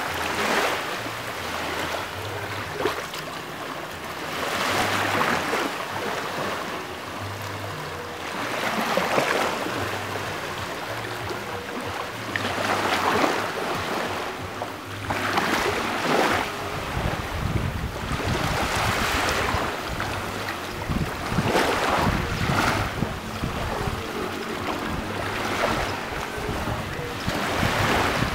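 Small waves lapping on a sandy shore, washing in every three to four seconds. Wind buffets the microphone from a little past halfway through.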